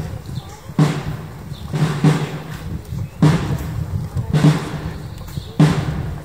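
Procession drum beating a slow, steady march, one strong deep stroke about every second and a quarter, each with a short ringing tail and a softer hit between some strokes.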